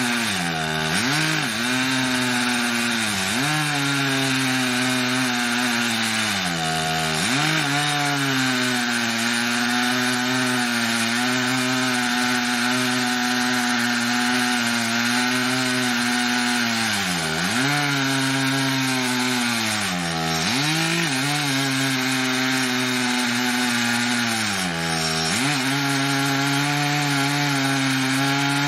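Stihl MS880 two-stroke chainsaw on an Alaskan chainsaw mill, running at high revs while ripping a large red oak log lengthwise into slabs. Its engine pitch sags under load and recovers about six times.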